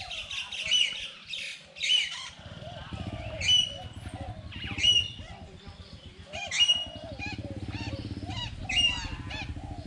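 Birds squawking and chirping: short, sharp calls about once a second, over a low, rapidly pulsing drone that starts a couple of seconds in.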